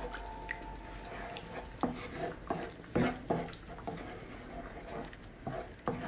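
Wooden spoon stirring a thick, creamy sauce in a pan on the heat: soft, scattered knocks of the spoon against the pan and wet popping and squelching from the simmering sauce.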